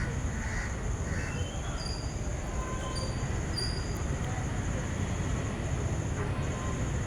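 Outdoor park ambience: a steady low rumble with a constant high-pitched buzz over it, and a few short bird chirps scattered through.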